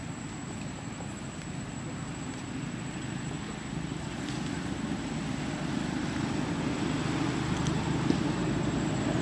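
A low, distant engine rumble that grows steadily louder.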